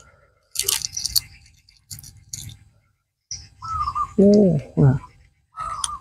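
Eggshell of a steamed fertilised duck egg (balut) cracking and being picked off by fingers, in three short bursts of crackling clicks. A little past halfway there is a brief vocal sound from the eater, the loudest moment.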